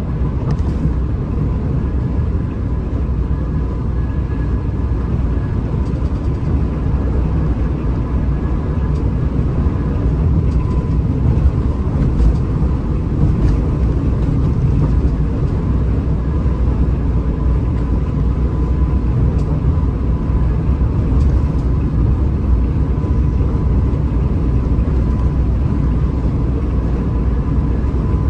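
Hino RM 280 bus's six-cylinder diesel engine and road noise while driving, a steady low rumble that holds even throughout.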